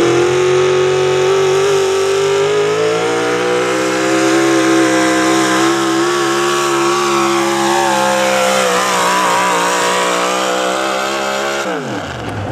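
Big-block V8 pulling truck with open exhaust stacks running flat out at high revs, dragging a weight-transfer pulling sled. Near the end the revs fall sharply as the throttle is lifted at the end of the pull.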